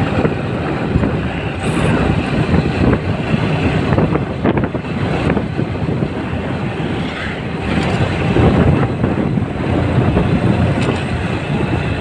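Motorcycle engine running as the bike rides along a paved road, heard as a steady low rumble.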